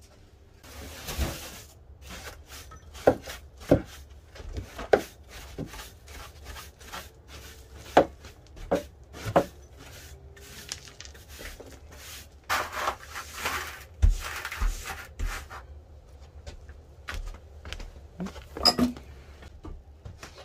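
Broom and dustpan sweeping debris off a shed floor, with scratchy brush strokes, among many separate sharp knocks and clatter as things are handled and set down.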